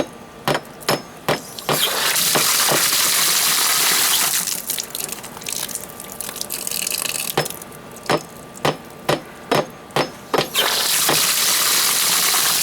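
Water gushing from a newly installed outdoor hose spigot, twice: once from about 2 to 4 seconds in and again near the end. Each burst is preceded by a run of sharp clicks or taps a few tenths of a second apart.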